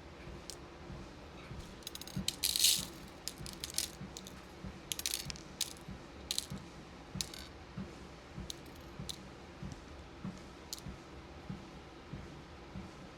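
Beads rattling and clicking as they are handled and sorted, with the loudest clatter about two and a half seconds in. Under it, regular soft footfalls on a walking pad.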